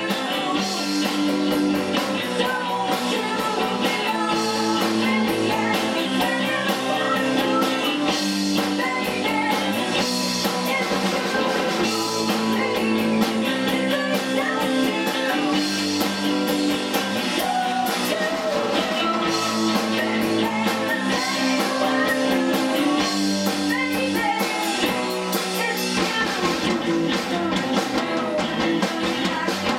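A rock band playing live: two electric guitars, a bass guitar and a drum kit, with a woman singing.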